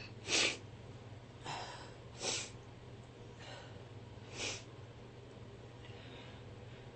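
A woman sniffing and snorting through her nose, about six short noisy breaths a second or so apart, the first the loudest and the later ones fainter. A steady low hum lies under them.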